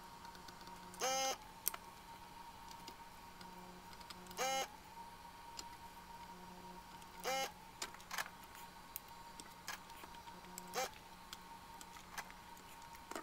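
Electric desoldering gun's vacuum pump firing in four short pitched bursts about three seconds apart, pulling molten solder out of the vias to free the cluster's X27.589 gauge stepper motors. Small clicks of the tool on the circuit board fall between the bursts, over a faint steady high whine.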